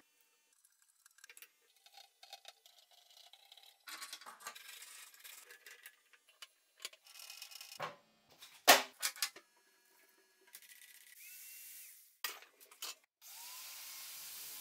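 Metal parts of a homemade angle-grinder belt-sander attachment being handled and fitted: scattered clicks and clinks, with one sharp metal knock about two-thirds in. Near the end the angle grinder starts and runs with a steady whir.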